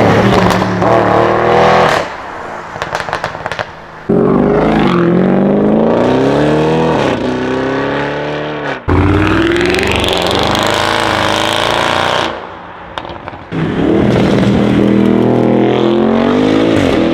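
Audi RS6 engine accelerating hard, its pitch climbing in four separate runs with abrupt jumps between them. In the two quieter gaps between runs the exhaust crackles and pops on the overrun.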